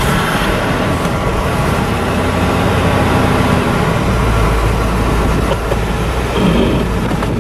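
A motor vehicle engine running, a steady low rumble under a broad hiss; the rumble deepens about four seconds in.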